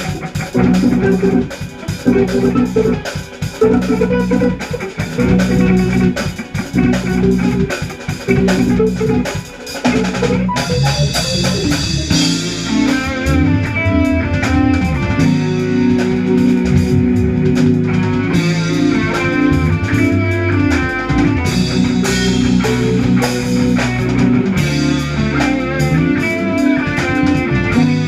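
Jazz fusion band playing with guitar and drum kit. The music fills out and gets busier about ten seconds in.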